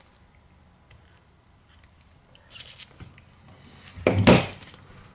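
Gloved hands handling a 6.0L Powerstroke fuel injector and its coil bolt on a workbench: a few faint small clicks and rustles, then one louder thunk about four seconds in.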